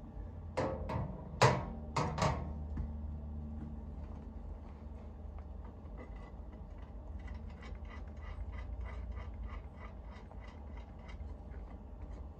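Sharp metallic clanks of nuts, washers and a tool against the storage box's steel brackets in the first couple of seconds. About five seconds in, a ratchet wrench starts clicking at about three clicks a second as a lock nut is tightened onto the bracket bolt.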